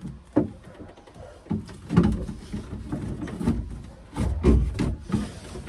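A green ribbed flexible hose being handled and worked into place among wooden floor bearers: a string of irregular knocks and scraping rubs, with a heavier thud about four and a half seconds in.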